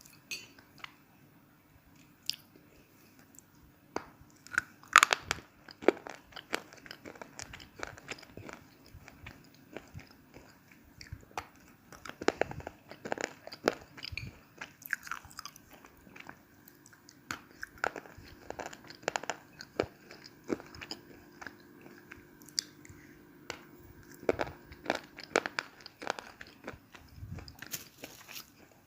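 Close-up crunching and chewing of Chandatara brand slate pencils: sharp, irregular crunchy bites and chews, the loudest about five seconds in.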